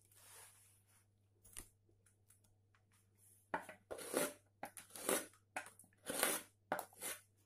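Round bent carving gouge pushed by hand through wood, shaving off chips in short scraping cuts as fur grooves are carved. One or two faint cuts come first, then a quick run of about seven cuts in the second half.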